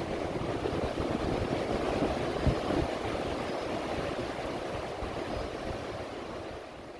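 Ocean surf washing against a wooden pier, a steady rushing wash with a rumbling low end that gradually fades near the end.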